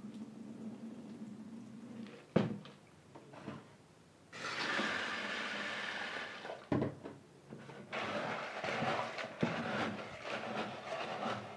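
Rinse water trickling off pigeon peas into a stainless-steel sink, with a sharp knock about two seconds in. Then a kitchen tap runs steadily into a plastic bowl of peas, with another knock midway and uneven splashing as the peas are rinsed.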